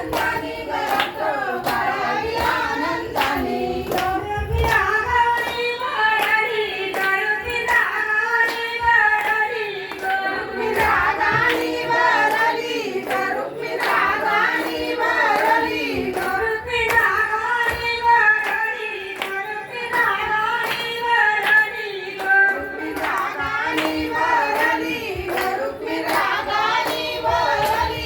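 A woman singing a traditional Marathi Ganpati devotional song, with hands clapping a steady beat along with it.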